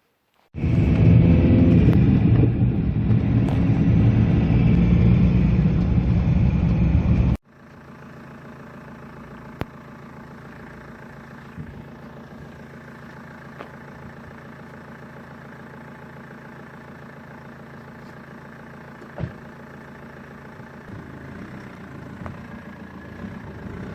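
BMW E46 2.0 engine running for the first time after a clutch replacement, loud for about seven seconds. The sound then drops abruptly to a much quieter steady idle, with a few faint clicks.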